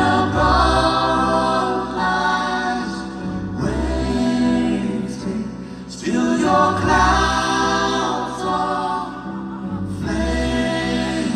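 Live band performing a slow ballad, with sustained wordless vocal harmonies over a deep bass line that moves every couple of seconds.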